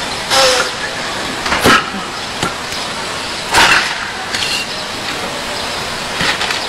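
Bare-hand chops breaking red clay bricks on a concrete bench: about five sharp cracks and knocks spaced a second or two apart, over a steady background hiss.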